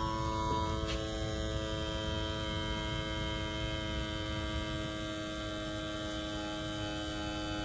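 Small electric RC fuel pump running at full speed on a 3S lipo battery: a steady whine made of several held tones over a low rushing noise, as it pumps fuel out to drain a tank.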